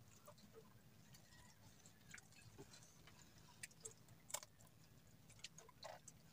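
Near silence with a few faint, scattered clicks and taps, clustered around the middle.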